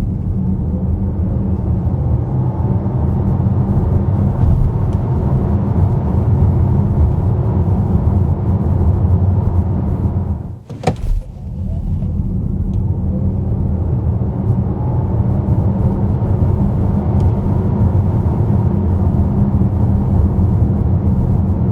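Electric Skoda Enyaq Coupe RS driving, heard inside the cabin: a steady low rumble of tyre and road noise with no engine note. About halfway through it briefly cuts out with a click, then the rumble builds back up.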